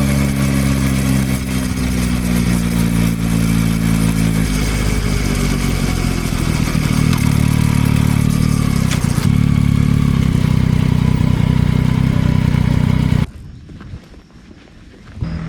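Yamaha XSR900's inline three-cylinder engine running under way, its note sagging for the first few seconds, then holding higher, with a short break about nine seconds in. The engine sound cuts off abruptly near the end, leaving only a faint background.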